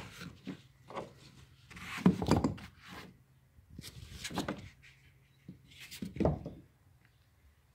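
Handling sounds from a padded kayak seat with a metal frame being moved against the plastic hull: several separate rubs and dull knocks, the loudest about two seconds in and just after six seconds.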